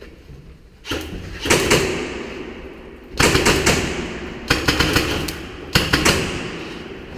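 Airsoft guns firing in quick bursts, five groups of sharp cracks, each followed by a long ringing echo off concrete walls.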